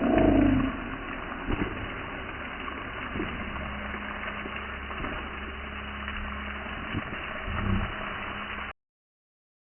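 Water spraying from a pipe and falling as artificial rain: a steady hiss over a low, even hum. It cuts off abruptly about nine seconds in.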